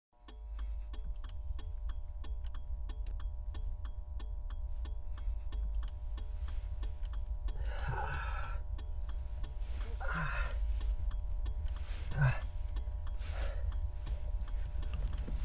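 A man sobbing in short, gasping bursts, four of them about two seconds apart from about eight seconds in. Under it runs a steady low rumble, and through the first half a fast ticking of about four to five ticks a second over a sustained hum.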